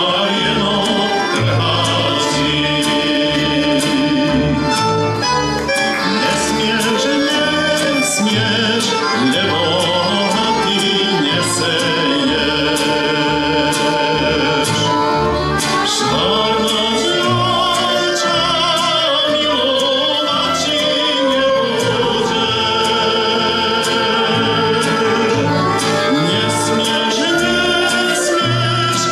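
A male voice sings a Slovak folk song with a live folk band of violins, accordions, flute, guitar and double bass. The bass line keeps a steady beat underneath.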